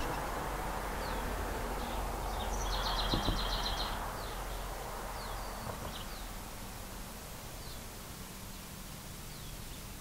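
Anna's hummingbird's wings humming as it hovers at a feeder, the hum fading over the second half, with faint high bird chirps throughout and a short fast chattering trill about three seconds in.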